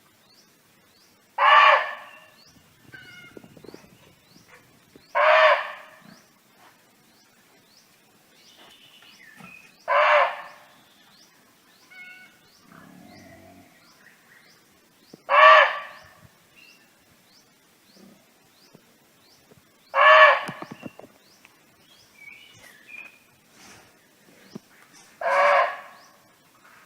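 Barking deer (muntjac) giving single loud barks, six in all, one about every five seconds. Under them runs a steady series of faint, high, short chirps.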